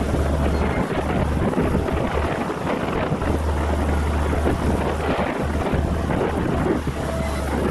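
Wind buffeting the microphone in a low, uneven rumble, over the steady running of a distant ride-on drum roller's engine.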